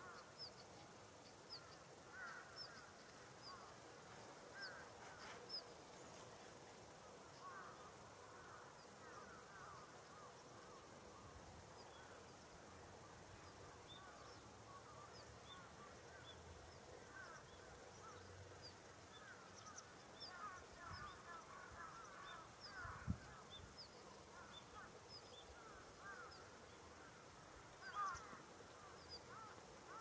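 Carrion crows calling faintly from their rooftop roost: many short, overlapping calls, busiest in the last third. A single low thump comes about 23 seconds in.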